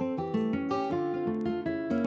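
Background music: an acoustic guitar plucking a lively run of notes.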